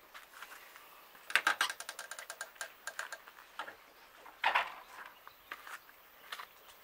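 Several cats eating together from a shallow dish: a run of quick wet clicking from chewing and lapping for about two seconds, then a louder short scuffling noise a little past halfway, with scattered clicks after.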